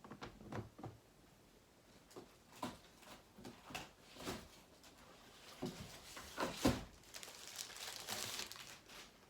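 Hard plastic graded-comic cases and their packaging being handled: scattered clicks and taps, one sharper knock about two thirds of the way in, then a short stretch of crinkling.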